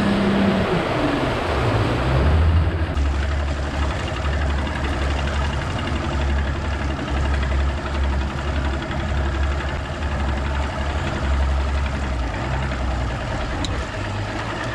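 Bass boat's motor running with a steady low rumble.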